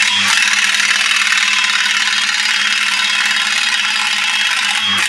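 A handheld power tool running steadily at the impeller's lock screw, a high whine over a loud hiss, stopping near the end.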